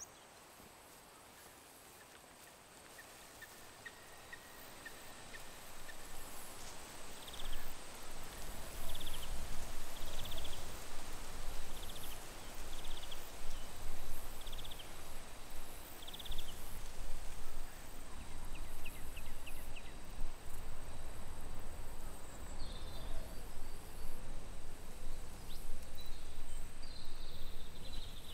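Outdoor field ambience: a noisy rumble swells in over the first several seconds and then stays up. Above it run a thin steady high insect hum and short high chirps, about one a second for several seconds.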